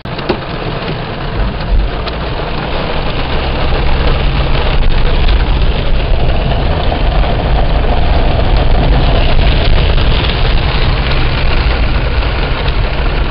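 Car cabin noise while driving through a heavy downpour: a steady rush of rain on the car and tyres on the wet road over a deep rumble, building over the first few seconds and then holding.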